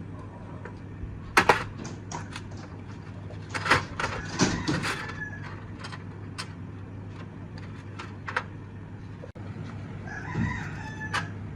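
A chicken calling in short pitched cries a few times, over a steady low hum, with sharp knocks and clicks from time to time that are the loudest sounds.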